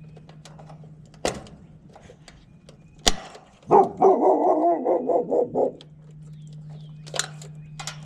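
A dog barking in a quick run of about two seconds midway. Two sharp clicks come before it, and a running heat pump's outdoor unit hums steadily underneath.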